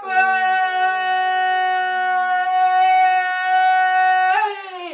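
A man's long, loud, high call held on one steady pitch for about four seconds, dropping away near the end. It comes between shorter rising-and-falling shouts of the same festive cry.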